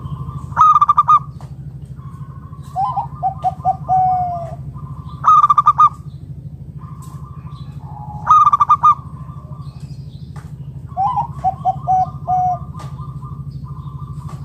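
Zebra dove (perkutut) cooing: three loud bursts of quick staccato coo notes, with two softer runs of short notes that step down in pitch between them. A steady low hum runs underneath.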